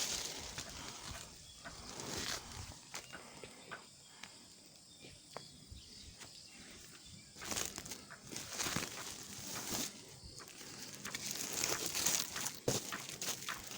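Leaves and twigs rustling in irregular bursts, with scattered sharp clicks and snaps, busier and louder in the second half, as someone moves among avocado branches.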